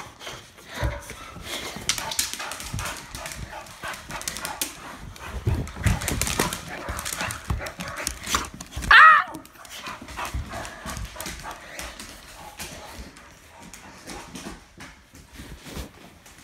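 Boxer dogs playing rough: paws scrabbling and clattering with scattered thumps, and one loud bark about nine seconds in.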